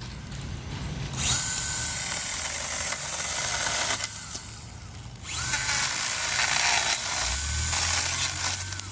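Stihl GTA26 battery mini chainsaw run twice in bursts of about three seconds each: the electric motor whines and the chain hisses. A low rumble comes in near the end.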